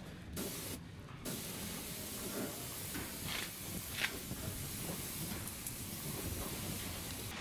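Undercoating spray gun spraying onto a vehicle's underbody: a steady hiss that cuts out twice briefly near the start, then runs on unbroken.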